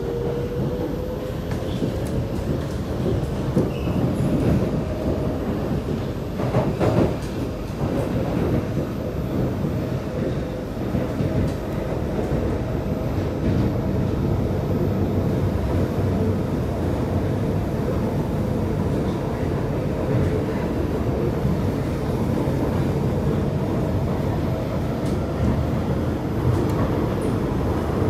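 Kawasaki C751B metro train running between stations, heard from inside the car: steady wheel-on-rail rumble and running noise, with the traction motor whine climbing in pitch until about a second in and then holding steady at cruising speed.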